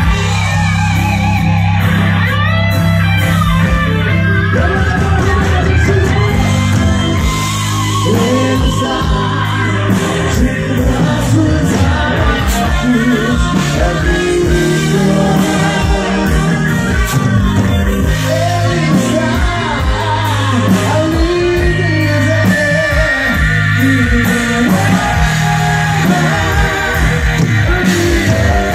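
Live gospel rock band playing: electric guitar, bass, drums and keyboard, with a male lead singer singing in Portuguese.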